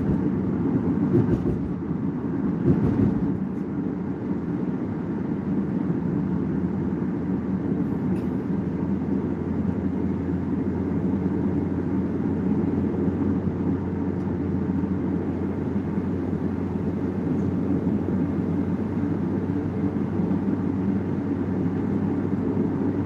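Steady road and engine noise of a car driving at highway speed, heard from inside the cabin: an even low rumble with no change in pitch. A few brief knocks come in the first three seconds.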